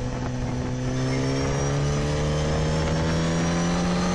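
Sport motorcycle engine pulling hard under acceleration, its pitch climbing slowly and steadily through one gear, with wind rushing past.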